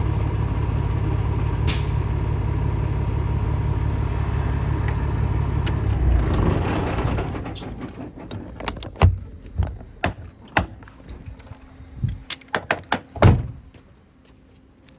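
Kenworth truck's diesel engine idling, then shutting off about seven seconds in. A series of sharp clicks and knocks with a jingle of keys follows.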